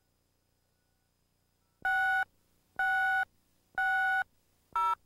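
Countdown cue beeps on a commercial tape slate. After about two seconds of near silence come three identical steady beeps about a second apart, then a shorter, higher beep that marks the start of the spot.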